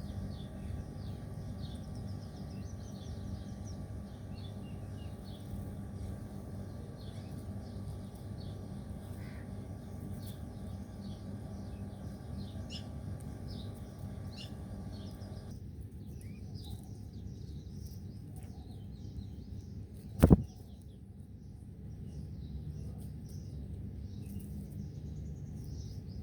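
Many small birds chirping in quick, overlapping short calls over a steady low background rumble. One sharp, loud click about twenty seconds in.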